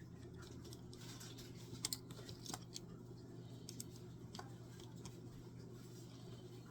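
A few faint clicks and taps over a steady low hum, with a small cluster of sharper clicks about two seconds in.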